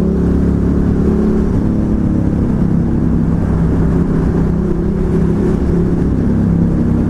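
Ducati Hypermotard 1100 S's air-cooled L-twin engine running steadily while the motorcycle cruises along the road.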